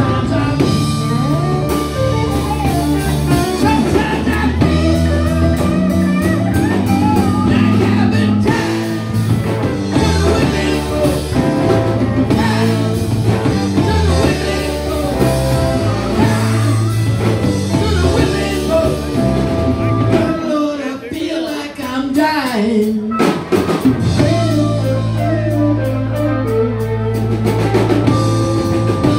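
Live rock band playing electric guitars, bass and drum kit, with singing. About two-thirds of the way through, the bass and drums drop out for a few seconds while a lone guitar bends notes, then the full band comes back in.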